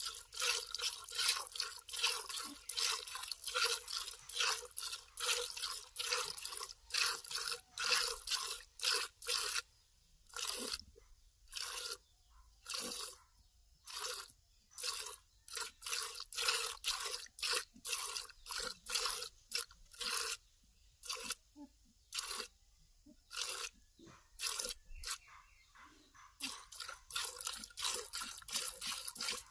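Cow being milked by hand into a plastic bucket: rhythmic squirts of milk hitting the bucket, about two to three a second, thinning out with pauses in the middle and picking up again near the end.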